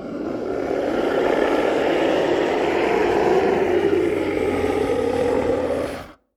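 Monster growl sound effect: one long, harsh, noisy growl that swells over the first second, holds steady, then cuts off abruptly near the end.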